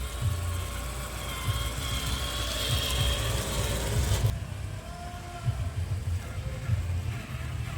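A 1/10-scale RGT EX86190 Rescuer RC crawler's electric motor and gearbox whine as it crawls, the pitch wavering with throttle, over an uneven low rumble. The higher whine and hiss drop away suddenly about four seconds in.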